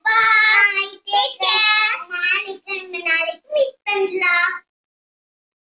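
Children's voices singing in short sing-song phrases, stopping abruptly about four and a half seconds in.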